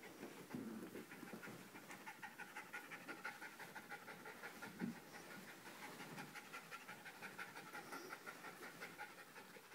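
Small dog panting rapidly, several quick breaths a second, out of breath from running. A brief soft bump about five seconds in.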